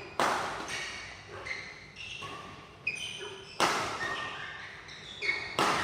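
Repeated sharp knocks, about eight of them, irregularly spaced, each followed by a brief ringing tail.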